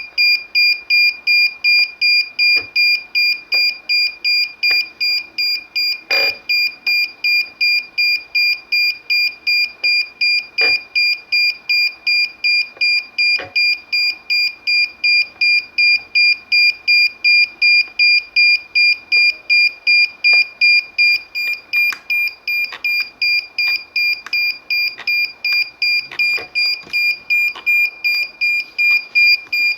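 DJI Phantom 4 remote controller beeping steadily, a high electronic beep repeating about two and a half times a second, during its calibration. A few faint clicks of handling sound under it.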